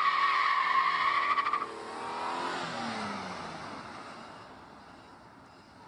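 Car tyres squealing as a sedan slides through a tight turn on asphalt, the squeal cutting off about a second and a half in. The engine note then falls in pitch and fades away.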